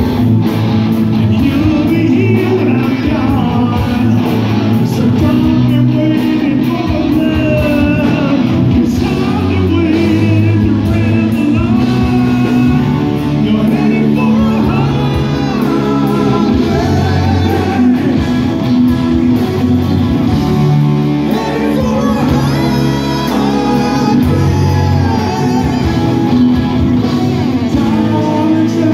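Live rock band with a male lead vocal over electric guitar, bass, drums and keyboards, playing a slow, sustained song, heard from the audience in a large hall.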